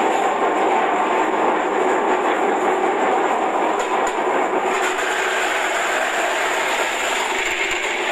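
Electric vegetable-slicing machine running, its motor and spinning cutting disc making a loud, steady mechanical noise. About halfway through the sound turns harsher and brighter as coconut flesh is pressed through the hopper and sliced.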